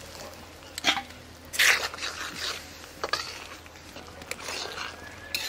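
Cooking pan and utensils at work while a garlic tempering for dal is being made: scattered clicks and scrapes, with one short hiss about a second and a half in.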